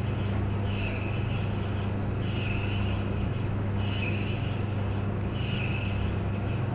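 Tumble clothes dryer running: a steady motor hum under a broad whirring noise, with a higher-pitched sound that comes around about every one and a half seconds.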